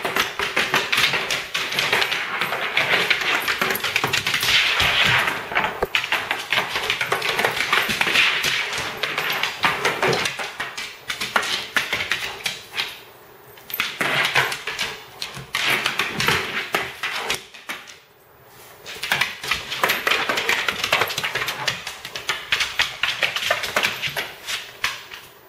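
A dog's claws clicking and scrabbling fast on a hardwood floor as it dashes and pounces after a laser dot, with brief lulls about thirteen and eighteen seconds in.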